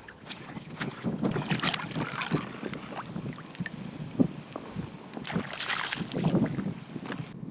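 Shallow water splashing and sloshing in two spells, about a second in and again past the middle, with scattered small knocks and clicks between them.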